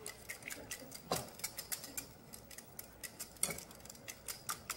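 Wire whisk beating a thick tomato sauce in a glass bowl: a run of light, irregular clicks and taps as the wires strike the glass, a few of them sharper than the rest.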